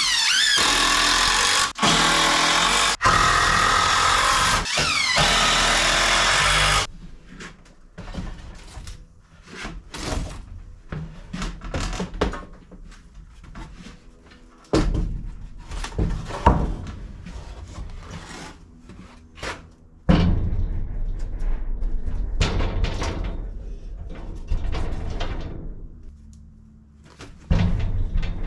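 Cordless drill driving 3-inch screws into 2x lumber, the motor speeding up and stopping in several bursts for the first few seconds. After that come irregular wooden knocks and thunks as the lumber shelf frames are lifted and shifted.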